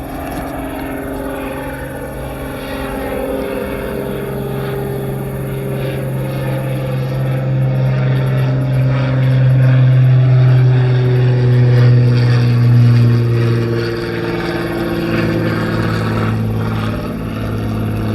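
A motor's low, steady hum that swells to a peak about ten to thirteen seconds in and then eases off, like an aircraft passing over.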